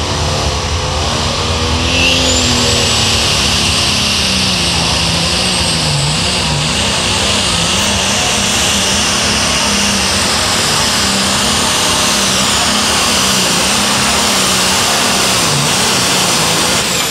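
Turbocharged diesel super stock pulling tractor at full throttle under the load of the pulling sled, its engine note dipping briefly a few times. A high turbo whine climbs sharply about two seconds in and stays loud over the engine.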